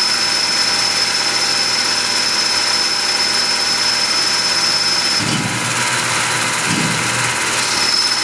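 Tormach PCNC 1100 mill running as a Duality lathe, its spindle turning an aluminum part on a dry CNC turning pass, a steady machine noise with a thin high whine. About five seconds in the whine drops out for a couple of seconds while a lower rumble comes twice, then the whine returns.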